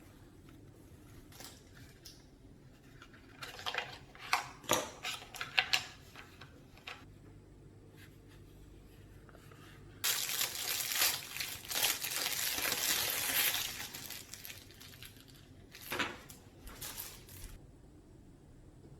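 Packaging being handled during unboxing: a run of sharp clicks and crinkles, then about four seconds of loud rustling or tearing that starts suddenly, and a few more crinkles near the end.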